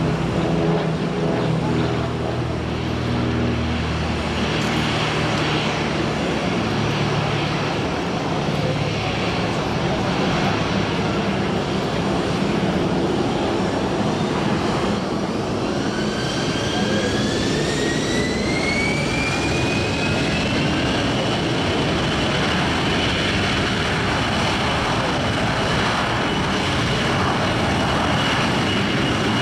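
Jet engines of an Airbus A321 spooling up to takeoff thrust for the takeoff roll. Under a steady jet roar, a fan whine rises in pitch from about halfway through and then holds steady.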